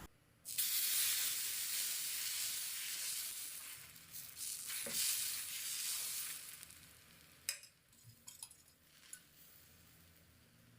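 Sizzling on a hot, oiled cast-iron dosa tawa as wheat adai batter meets it. It starts suddenly, swells again about four seconds in and dies away around seven seconds in, leaving a few faint clicks.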